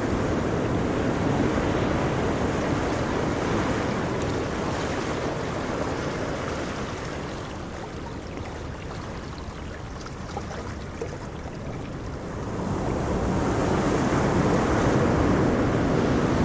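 Ocean surf: a steady rush of waves that eases off in the middle and swells again as the next wave comes in about twelve seconds in.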